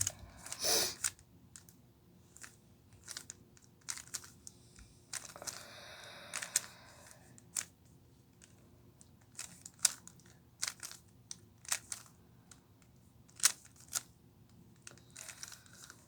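Plastic 3x3 Rubik's Cube being turned by hand: irregular clicks and clacks of its layers snapping into place, with a longer stretch of rustling turns about five to seven seconds in.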